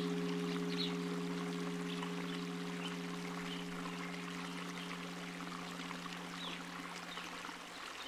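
Steady flowing, pouring water, the kind laid under relaxation music, with a held low ambient chord slowly fading out beneath it.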